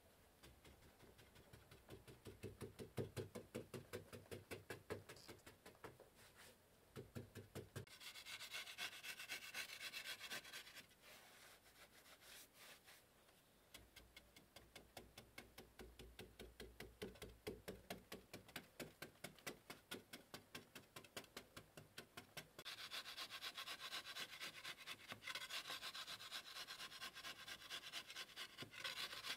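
A wooden stick rubbed back and forth over a packed mud wall to smooth it: quick, even scraping strokes, several a second, harsher in two longer stretches, one about a third of the way in and one over the last quarter.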